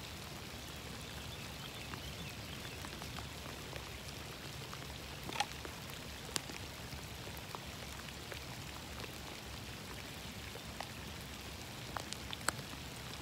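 Steady rain falling, with a few louder single drops striking close by, about five and a half, six and a half and twelve seconds in.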